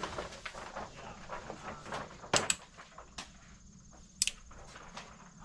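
Three sharp clicks: a quick pair a little over two seconds in and a single one about four seconds in, over low background noise.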